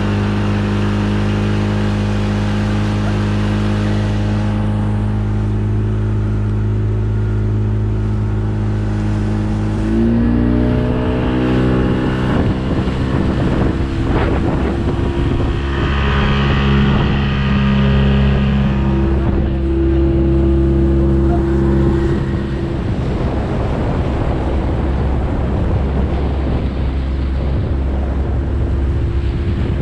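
Outboard motor of a Progress motorboat running steadily, then picking up revs about ten seconds in as the boat gets under way. After the revs go up, a rushing noise of water and wind grows under the engine.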